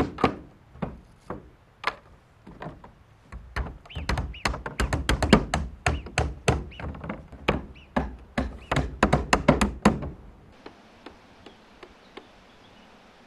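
Hammer nailing larch roof shingles: a fast run of sharp hammer blows, several a second, then after about ten seconds only a few faint, distant taps.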